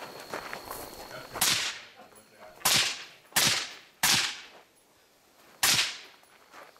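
Five rifle shots fired at an uneven pace. Each is a sharp crack with a short echo tail, the gaps running from under a second to about one and a half seconds.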